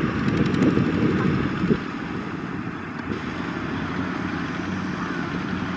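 Several Kubota ZT155 single-cylinder diesel engines on two-wheel tractors running together as they haul trailers. The sound is louder and busier for the first couple of seconds, then settles to a steadier, slightly quieter chugging.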